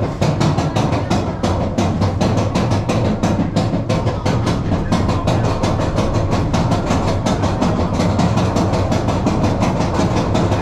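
Vekoma mine train roller coaster moving slowly under a roof: a fast, even clicking, about seven clicks a second, over a steady low hum.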